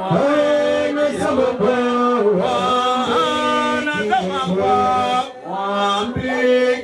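A man singing a chant-like melody into a microphone, holding long notes with short slides in pitch between them and a brief break about five seconds in.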